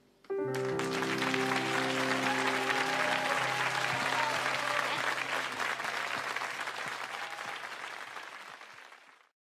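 Studio audience applause breaking out suddenly about a third of a second in, over held notes of the song's closing music. The applause fades toward the end and then cuts off abruptly.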